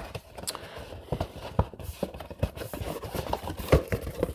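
Irregular knocks and clatter of things being handled and set down on a wooden desk, a dozen or so short hits. The loudest come at the very start and near the end.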